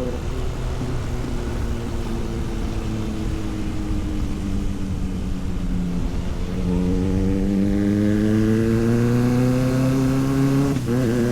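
Motorcycle engine on the move. Its note falls slowly for about six seconds, then turns louder and rises steadily as it accelerates, with a brief break near the end.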